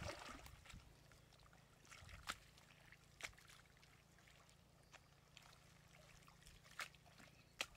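Faint water sounds: a few scattered small drips and splashes, heard as sharp isolated ticks over a quiet low hum.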